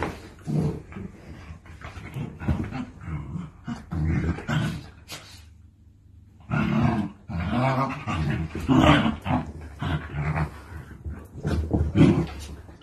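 Several dachshunds growling and grumbling at each other during rough play, in repeated bouts with a short lull about halfway.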